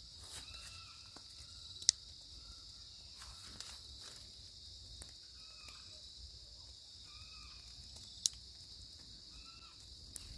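Faint night insect chorus of crickets, a steady high buzz, with a short call repeating every second or two. Two sharp clicks stand out, about two seconds in and near eight seconds.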